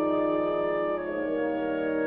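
Slow instrumental music of long held chords, moving to a new chord about a second in.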